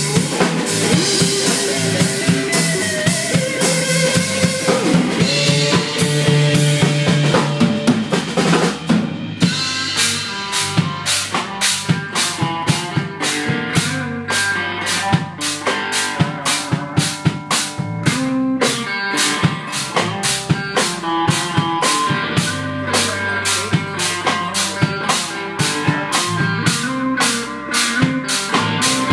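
Live instrumental rock-blues: an electric guitar plays lead lines over a drum kit. About nine seconds in the drums settle into a steady, even beat of kick and snare that runs under the guitar notes.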